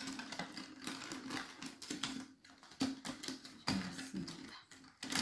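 Thin strips of a cut clear plastic cup clicking and rustling as stretchy sock-loop fabric bands are woven through them by hand: an irregular run of small ticks and scrapes.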